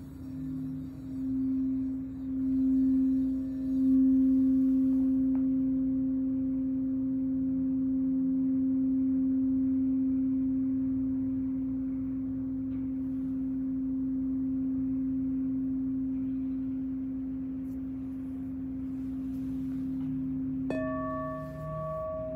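A 9-inch crystal alchemy singing bowl tuned to C is played around its rim with a wand. It swells in pulsing waves for the first few seconds, then rings on as one steady, low, pure tone that fades slowly. Near the end a knock on the bowl brings out brighter, higher overtones over the ringing tone.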